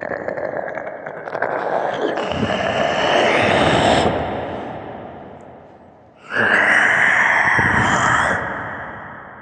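Zombie growl sound effect: two long, breathy vocal growls. The first builds up over about four seconds and dies away slowly; the second starts abruptly about six seconds in, holds for about two seconds, then fades.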